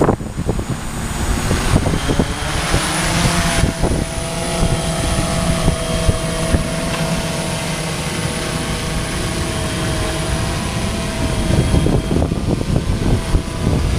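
DJI S1000 octocopter's eight electric motors and propellers lifting it off a boat deck into a hover, a steady multi-tone buzz over the rush of propeller wash. There is a louder rush of air about two to three and a half seconds in as it lifts away.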